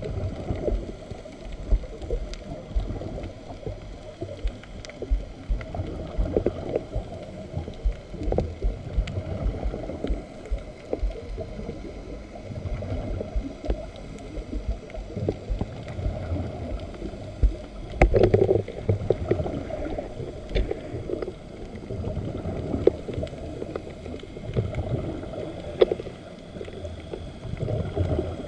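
Underwater sound picked up through a GoPro Hero 3+ Black's waterproof housing: a muffled, irregular low rumble and gurgle with scattered knocks, and a louder burst about 18 seconds in.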